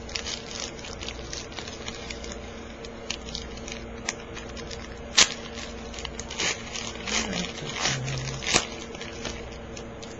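Crinkling, crackling and tearing of a foil trading-card pack wrapper being opened and the cards handled, with a few sharper snaps about five and eight and a half seconds in. A steady low hum runs underneath.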